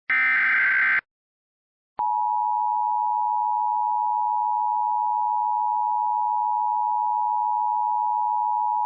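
Emergency Alert System tones. First comes a one-second burst of SAME header data, the last of the coded header bursts. After a second of silence, the two-tone EAS attention signal starts about two seconds in: 853 and 960 Hz played together, held steady.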